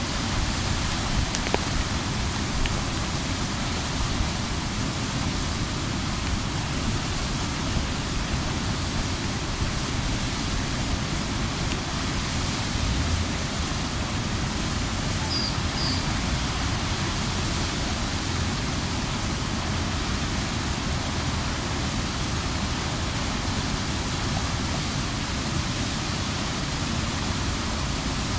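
River water pouring over a weir and churning through the rocks below: a steady, unbroken rush of white water with the river in flood.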